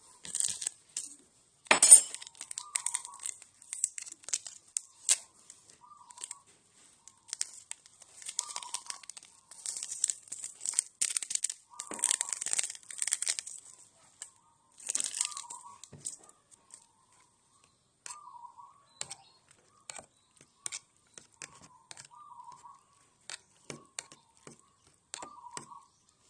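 Crinkling and rustling of plastic packaging handled in irregular bursts, with a sharp tearing crack about two seconds in.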